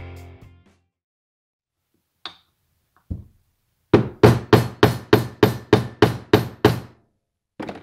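A mallet tapping on a socket used as a seal driver, seating a new oil seal into an ATV engine side cover: a light knock, then a quick even run of about eleven strikes at about four a second, and one last tap near the end.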